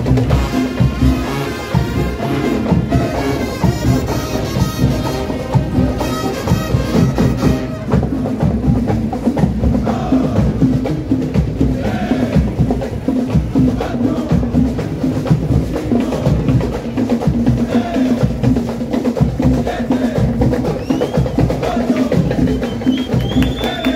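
Cumbia music with drums and clacking wood-block percussion keeping a steady beat. A fuller melody plays over it for about the first eight seconds, after which the percussion carries on mostly alone.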